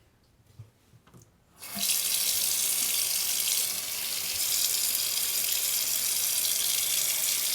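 Sink tap turned on about a second and a half in, water running steadily into the basin as hands are washed under it with homemade soap.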